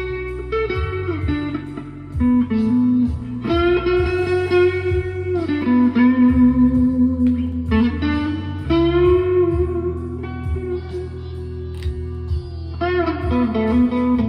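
Chapman ML1 Pro Hybrid electric guitar playing a melodic lead line of sustained notes, several of them bent up in pitch, over steady low notes.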